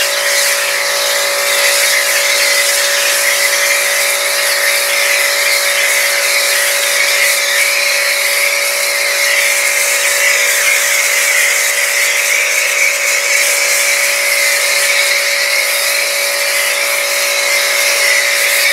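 Pressure washer running with a foam cannon: the machine holds a steady hum while the nozzle sprays degreaser foam with a loud hiss, which doesn't let up.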